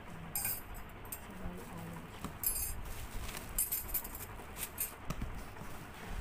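Plastic bubble wrap crinkling and rustling in short, irregular bursts as it is handled inside a cardboard box.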